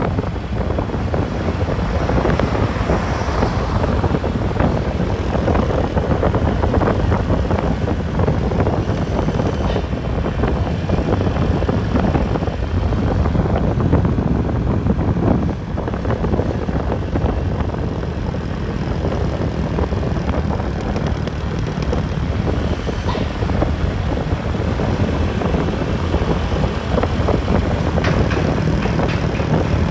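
Steady vehicle running noise on the road: engine rumble and road noise, with wind buffeting the microphone.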